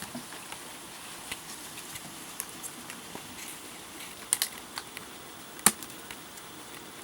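Scattered sharp clicks and pops over a faint steady hiss, the loudest a close pair about four seconds in and a single sharp one nearer six seconds.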